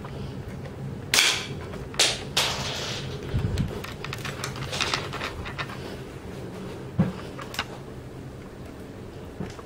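A working LEGO brick model of a Barrett M82A1 rifle firing with a sharp plastic snap about a second in, followed by a string of lighter clicks and rattles of its LEGO mechanism as it is handled and worked.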